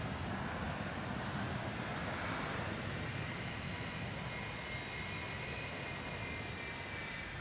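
Jet airliner engines on the runway, heard at a distance: a steady low rumble with a faint high whine that becomes clearer about halfway through.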